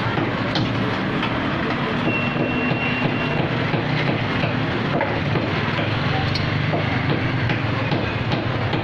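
Busy market street traffic noise, a motor vehicle engine running steadily under it, with a brief thin high tone about two seconds in.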